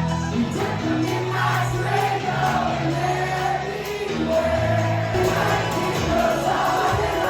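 Music with singing over long held bass notes.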